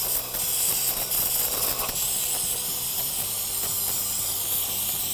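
Aerosol parts cleaner spraying in a steady hiss onto a plastic oil filter housing, washing old oil and debris off it.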